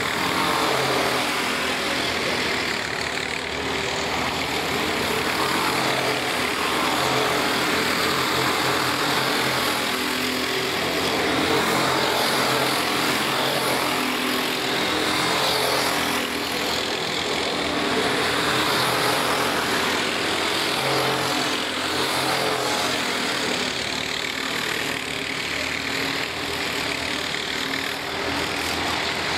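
Several racing go-kart engines running on a circuit. Their pitch rises and falls again and again as the karts accelerate out of corners and brake into them, over a continuous drone of karts elsewhere on the track.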